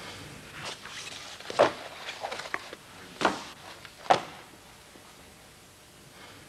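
Papers handled on a desk: a few short rustles and knocks, three of them sharp and loud, in the first four seconds.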